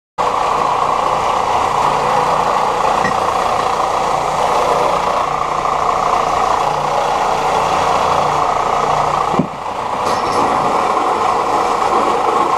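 Electric power tool grinding steel angle iron, a steady grinding noise with a short break about nine and a half seconds in.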